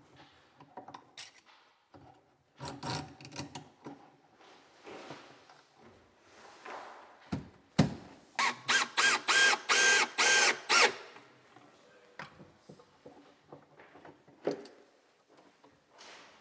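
A cordless drill-driver run in about eight short trigger bursts, each rising and falling in pitch, starting about eight seconds in. Knocks and handling of cabinet wood and clamps come before and after it.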